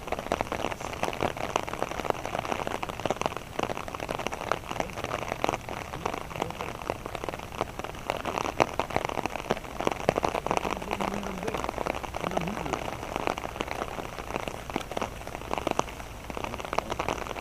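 Steady rain, many drops ticking close to the microphone.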